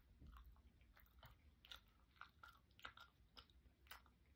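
A person chewing a mouthful of food: faint, irregular, moist clicks from the mouth, several a second.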